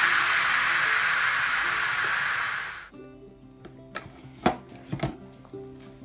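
Electric pressure cooker's steam release valve venting a loud hiss of steam for about three seconds, the quick release of pressure after cooking, which cuts off suddenly. Then a few sharp clicks as the lid is turned open, over background music.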